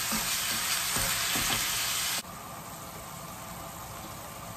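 Minced pork sizzling in a frying pan as it is stirred with a wooden spoon. About two seconds in it cuts suddenly to a quieter, softer sizzle, with a little water now added to the pork.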